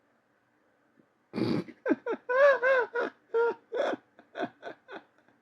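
A man laughing: a sharp gasping breath about a second in, then a run of high-pitched laughs that fade away.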